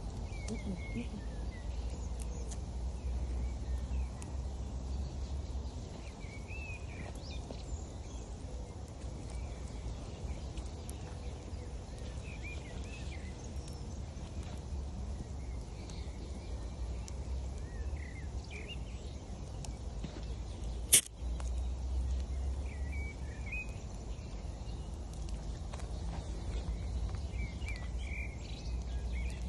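Small birds chirping on and off over a steady low rush, with one sharp crack about two-thirds of the way through.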